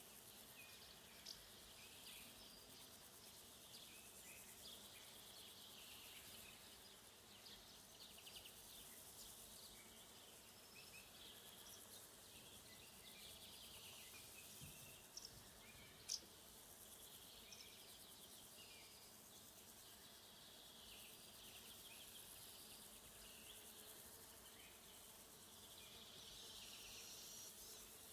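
Faint steady chorus of crickets trilling, with scattered short bird chirps over it and one sharp tick about halfway through.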